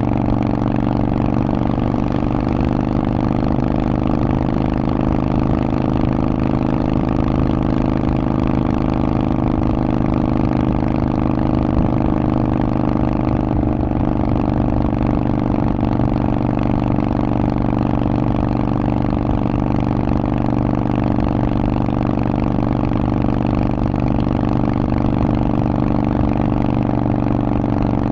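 Harley-Davidson Forty-Eight's air-cooled V-twin running through a Vance & Hines aftermarket exhaust at a steady engine speed, its pitch holding level throughout with no revving or gear changes.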